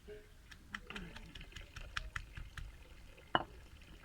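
Light clicks and taps of kitchen utensils being handled during food preparation, with one sharper knock about three and a half seconds in.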